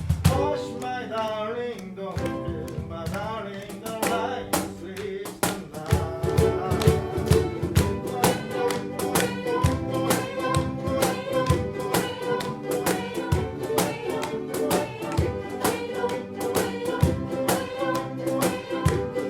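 Ukulele ensemble strumming a steady rhythm, with a sustained melody line carried above the chords.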